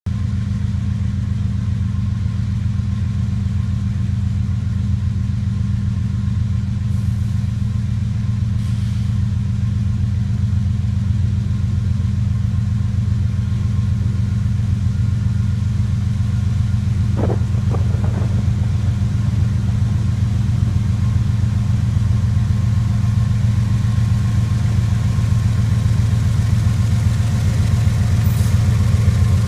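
CSX diesel locomotives pulling a ballast train, their engines running with a steady low rumble that grows slightly louder as they approach, with a single brief knock about halfway through.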